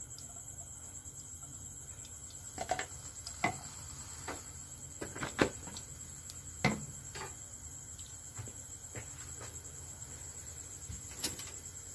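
Ghee heating in a hot non-stick pot on a gas burner, giving scattered soft pops and clicks, about half a dozen of them, the loudest around the middle. Under them runs a steady high-pitched whine and a low hum.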